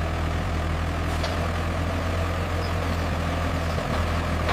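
Heavy vehicle engine running steadily with a constant low hum.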